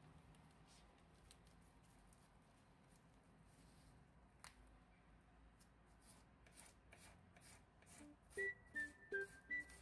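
Near silence with a few faint clicks, then background music fades in: a light, even ticking beat from about two-thirds of the way through, joined near the end by short, high melody notes.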